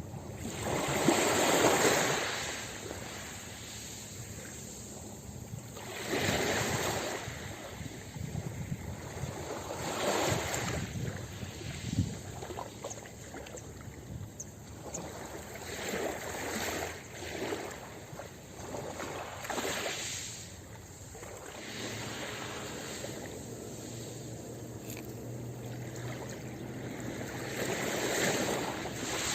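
Ocean waves breaking on a beach: surf swells and washes out every few seconds, the largest wash about a second in and another near the end.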